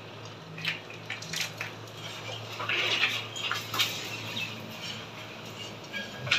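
Light clinks and scrapes of steel plates as chopped onion and green chilli are scraped by hand off a small steel plate into a steel thali of batter, with scattered soft clicks.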